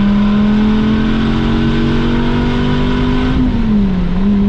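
Dodge Viper ACR's V10 engine, muffled by a stock muffler, heard from inside the cabin at freeway speed, its note climbing slowly as it pulls in third gear. About three seconds in the note dips and settles a little lower, and the exhaust rush quietens.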